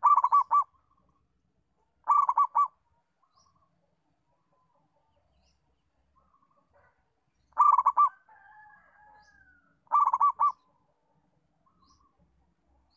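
Zebra dove (perkutut) cooing: four short bouts of rapid staccato coos, each a quick run of four or five notes. The last two bouts come closer together, with a fainter drawn-out wavering call between them.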